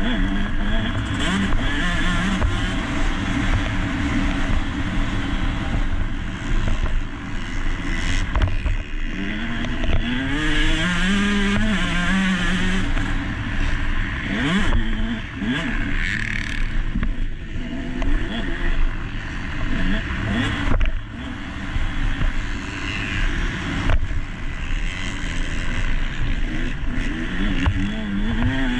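Motocross dirt bike engine at race pace, revving up and dropping back again and again through gear changes and throttle blips, with wind noise on an onboard action camera. A couple of sharp knocks come from the bike over the rough track.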